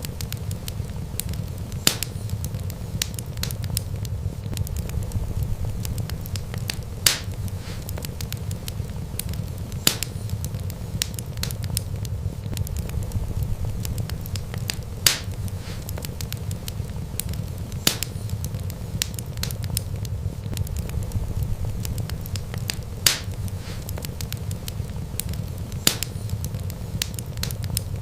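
Wood fire crackling over a steady low rumble of flames, with a sharp pop every few seconds.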